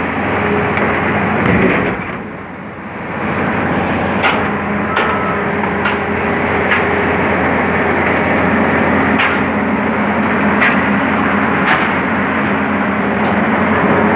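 Hydraulic excavator's diesel engine running steadily under load while its grab bucket unloads crushed stone from an open railway wagon, with sharp clanks every second or two.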